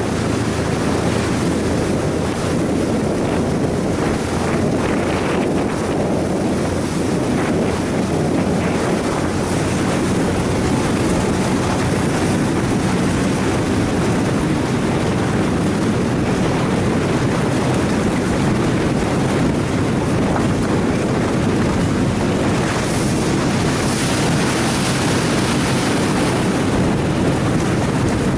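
Steady rush of wind buffeting the microphone and water streaming past a small boat under way, with a low steady hum from its motor underneath.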